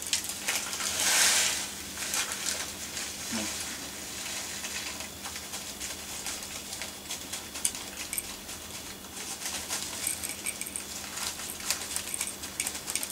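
Plastic bag crinkling and granules of model coal pattering into a small model railway wagon as they are poured from the bag. A louder rustle of the bag about a second in, then many small scattered ticks of the grains landing, growing busier near the end.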